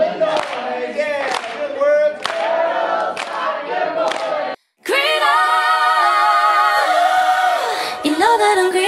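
An audience cheering and clapping with their arms raised. After an abrupt cut about four and a half seconds in, several voices sing a long held chord without accompaniment, its pitch shifting near the end.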